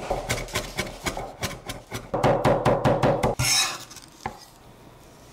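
Cleaver rapidly chopping red shallots on a wooden cutting board, about four to five strokes a second, mincing them fine. Near the end the blade scrapes across the board to gather the minced shallot, followed by a single tap.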